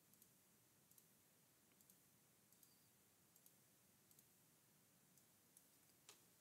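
Near silence, with faint computer mouse clicks about once a second, often in pairs, and one slightly louder click near the end.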